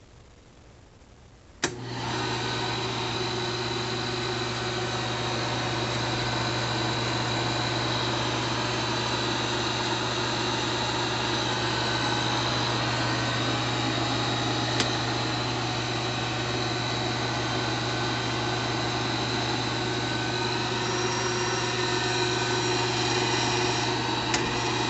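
Kodak Pageant 16 mm sound projector switched on with a click about two seconds in, then running steadily with a low hum and mechanical whir from its motor and drive mechanism. A few small clicks come near the end.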